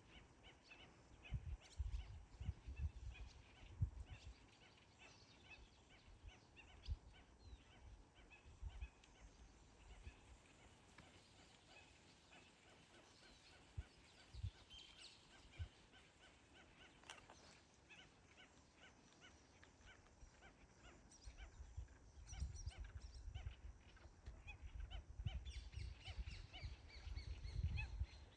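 Birds calling with many short chirps, faint and spread across the field. Low rumbling bumps of footsteps or wind on the microphone come in the first few seconds and again over the last several seconds.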